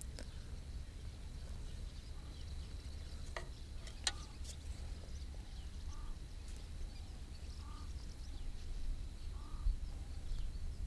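Quiet outdoor background with a steady low rumble, two faint clicks about three and four seconds in as small carp-rig tackle is handled, and a few faint short bird calls in the second half.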